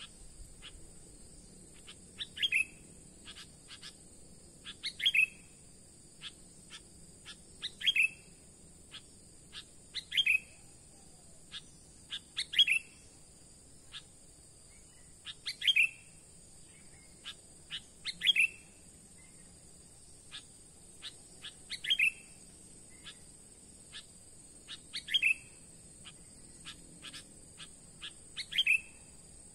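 A bird call repeated at a very even pace, about every two and a half seconds: a few quick chips, then a short falling note. A steady high insect drone runs underneath.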